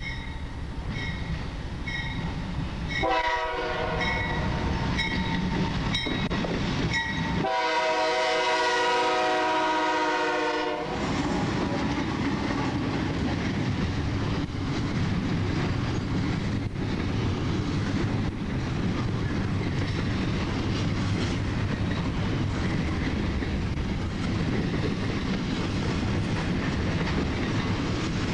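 Freight locomotive horn sounding a short blast, then a long loud one, over a bell dinging about once a second. Then the steady rumble of double-stack container cars rolling past at speed, their wheels knocking now and then.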